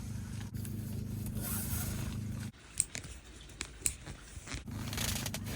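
Rope being handled, scraping and rustling as it slides through the hands, with a few sharp clicks. A steady low hum runs underneath and drops out for about two seconds midway.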